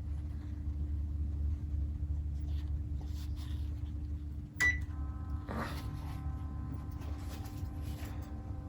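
Panasonic room air conditioner running with a steady low hum. About halfway in, a click and a short high beep sound, after which faint steady whining tones join the hum, with faint scattered ticks.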